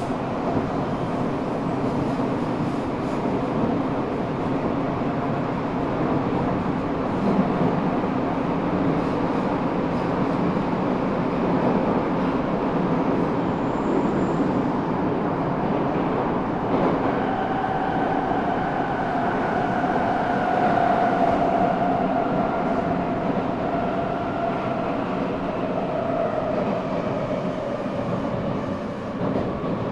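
Eidan 6000-series subway car running in tunnel: steady wheel and rail rumble with traction motor noise. Partway through, the high-pitched whine of its Mitsubishi three-level VVVF inverter, reused from a 7000-series car, sets in and slowly falls in pitch as the train brakes for the next station.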